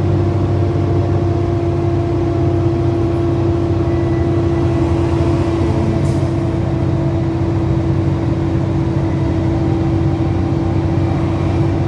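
Heavy tractor-trailer's diesel engine running steadily, heard from inside the cab with road noise: a steady drone with a constant hum.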